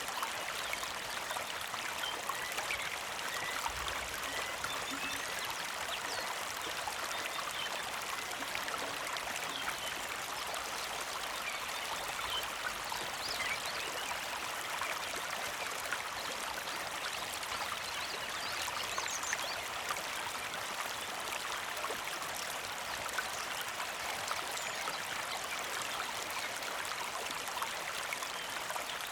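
Small mountain creek flowing steadily with a gentle trickle, with faint, brief bird chirps here and there.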